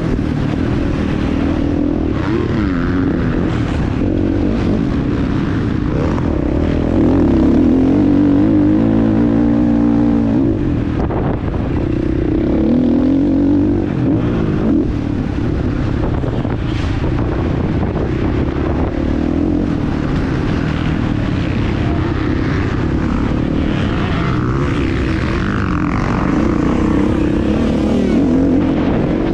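Husqvarna FC 450's 450cc single-cylinder four-stroke engine running hard, revs rising and falling again and again as the bike is ridden around a motocross track. It is loudest about seven to ten seconds in, before the revs drop off.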